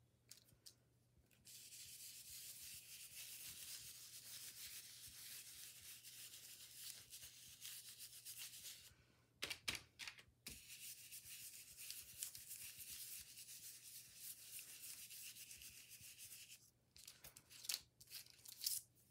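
Sponge paint dauber rubbing and scrubbing paint through a plastic stencil onto paper: a quiet, steady scratchy rubbing. It breaks off briefly for a few knocks a little past the middle, then resumes, and a few light taps come near the end.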